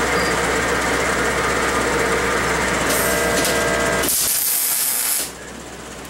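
A loud, steady machine noise for about four seconds. Then comes about a second of arc welding on square steel tubing, a bright crackling hiss that cuts off suddenly.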